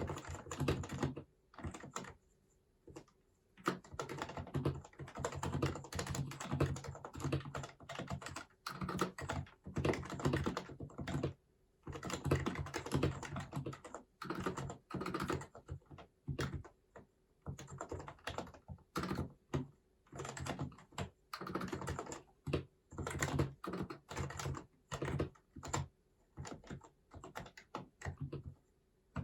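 Typing on an HHKB Hybrid Type-S keyboard, whose silenced Topre key switches are struck in fast runs of keystrokes broken by short pauses.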